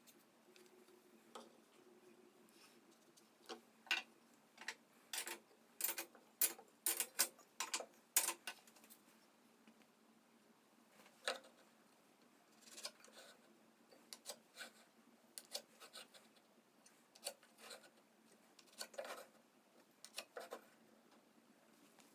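Irregular light taps and clicks, coming thickly for a few seconds about four seconds in and then more sparsely.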